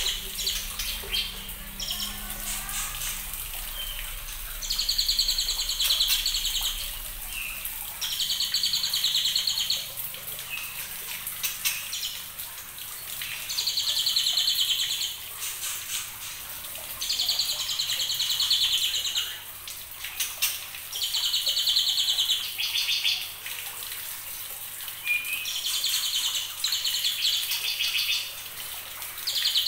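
Juvenile white-rumped shama, a little over two months old, singing in repeated bouts of rapid, high warbling phrases. Each phrase lasts a second or two, with short pauses between, about eight times.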